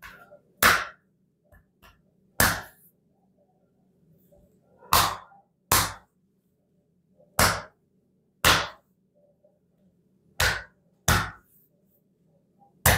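Hand slaps on a man's bare back, nine sharp smacks spaced unevenly a second or two apart, some in quick pairs. These are the percussive strikes of a bonesetter's back treatment, which he calls a shock-wave method.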